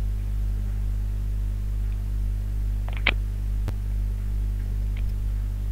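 Steady low electrical mains hum with a faint buzz above it, with a brief short sound about three seconds in and a single sharp click a little later.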